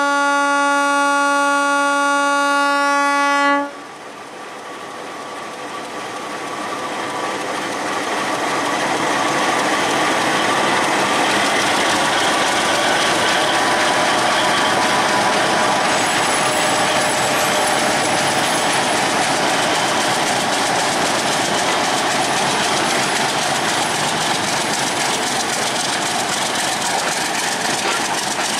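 Diesel locomotive horn sounding one long steady blast that cuts off about three and a half seconds in. The train's running noise then builds over several seconds and holds steady: wheels and coaches rattling over the track.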